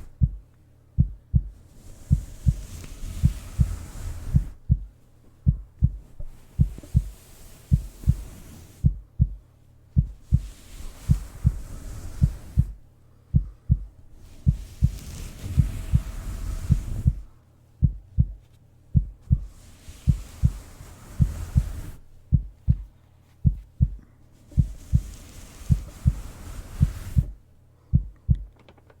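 Heartbeat thumping steadily in close lub-dub pairs, a bit over one beat a second, with a soft swishing hiss that rises and falls every few seconds.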